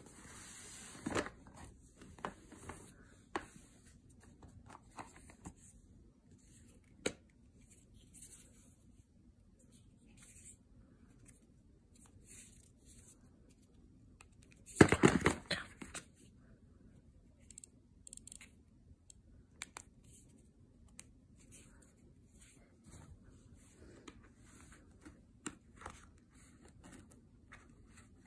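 Hands handling the cardboard box and inserts of an iPod mini: scattered rustles, taps and slides of card, with one louder rustle lasting about a second about halfway through.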